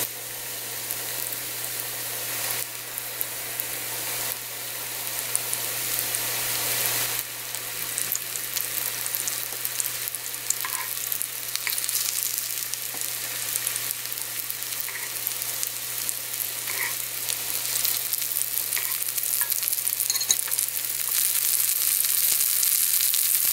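Breaded chicken breast cutlets shallow-frying in oil in a frying pan: a steady sizzle with scattered small pops and crackles that grows louder toward the end. A low steady hum runs underneath.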